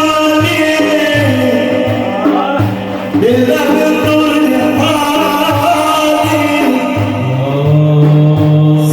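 Male voices chanting a devotional praise song for the Prophet (madih), held and gliding notes, over a steady beat of low drum strokes.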